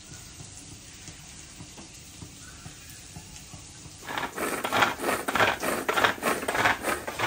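Pull-string manual chopper shredding boiled chicken: quick repeated whirring, rattling bursts as the cord is yanked again and again, spinning the blades in the plastic bowl. Before that, about four seconds of only a faint low background.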